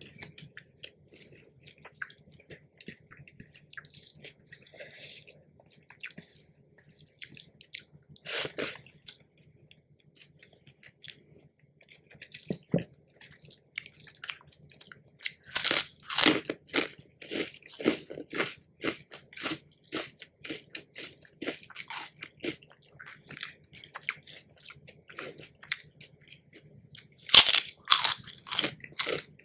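A person eating crisp food with quieter chewing throughout, and loud, dense crunching bites about halfway through and again near the end.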